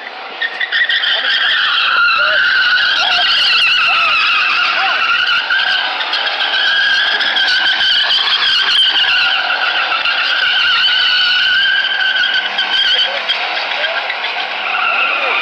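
Pickup truck's rear tires squealing without a break as it spins donuts in its own tire smoke. The pitch wavers up and down and the squeal fades out near the end.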